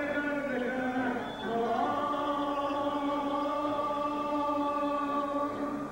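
Mariachi singing: after a short bending phrase, the voice holds one long steady note from about two seconds in until near the end.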